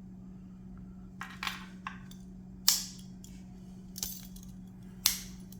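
Victorinox Pioneer X Swiss Army knife tools being worked open and shut: a handful of sharp metallic clicks and snaps as the blades move against their backsprings, the loudest about two and a half seconds in. A low steady hum runs underneath.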